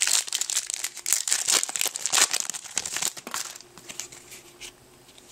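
Yu-Gi-Oh! booster pack wrapper crinkling and being torn open, the crackle dying down after about three and a half seconds.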